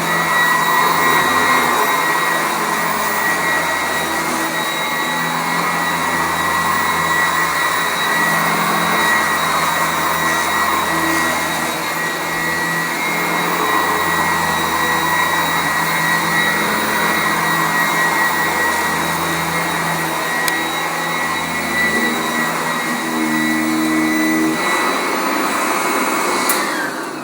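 Sanitaire SC899 commercial upright vacuum running steadily on carpet: a rush of air under a steady high whine. Near the end it is switched off and the motor winds down, the whine falling in pitch.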